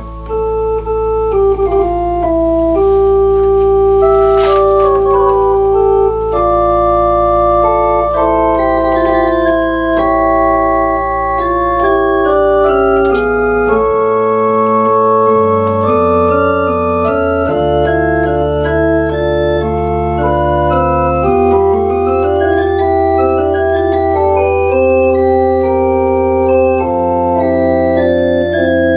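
Two-manual digital home organ playing a slow French Baroque piece, with the tierce stop sounding on the left-hand tenor solo line against sustained upper chords. A long-held low bass note moves about fourteen seconds in and changes several more times after.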